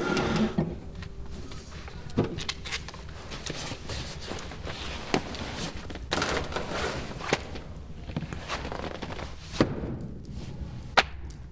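Scattered knocks, thuds and footsteps of someone rummaging around a room, with a longer rustling, shifting stretch about six seconds in as a leather couch is tipped up.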